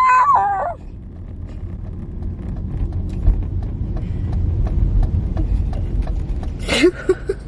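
A woman makes a high, wordless vocal sound that sweeps up and back down in pitch, lasting under a second, over a steady low rumble of car road noise. Near the end come a few short, choppy bursts of laughter.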